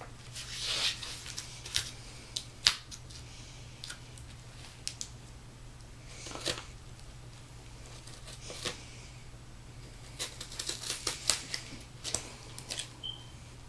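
Heavily taped mailing package being cut and pulled open by hand: scattered clicks, scrapes and short rips of packing tape and cardboard, with a quicker run of clicks and rips in the second half.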